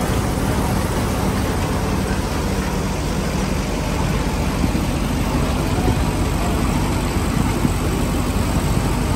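Tractor-driven threshing machine running steadily: the tractor engine's low drone under the dense whir of the belt-driven threshing drum and fan, as dry crop stalks are fed in.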